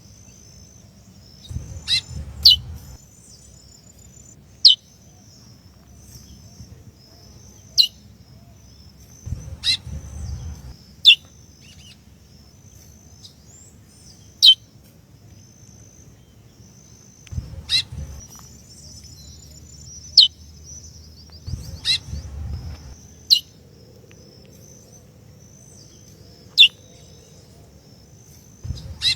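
Female curió (chestnut-bellied seed-finch) giving single short, sharp, down-slurred 'piu' calls every two to three seconds, about a dozen in all. This is the call a female uses to excite the male.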